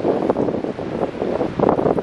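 Strong wind buffeting the microphone in uneven gusts.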